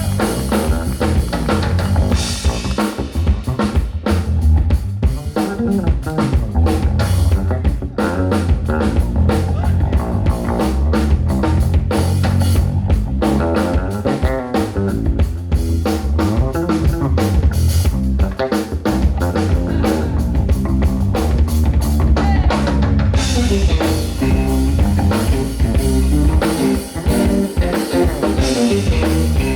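Live band playing: an electric bass guitar carries strong, steady low notes over a drum kit keeping a beat.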